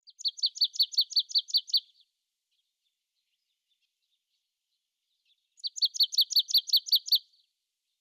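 A small songbird singing: a quick run of about ten identical high, clear notes, about six a second, repeated once about five seconds later.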